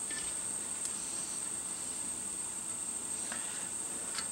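Room tone: a steady high-pitched whine over an even hiss, with a faint click about a second in and another near the end.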